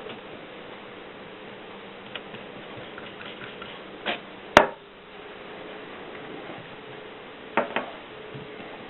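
Mercedes typewriter being worked slowly: a few scattered, separate mechanical clacks and ticks, with one much louder sharp clack about halfway through and a quick pair of clacks near the end.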